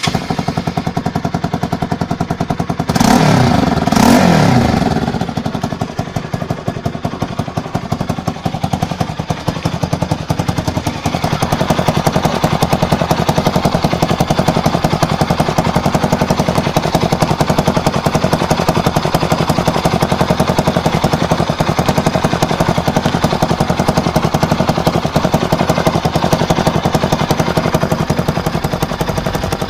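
Bajaj Pulsar NS200's single-cylinder engine running at idle with a fast, even exhaust beat. The throttle is blipped twice about three and four seconds in, each rev rising and falling back to idle.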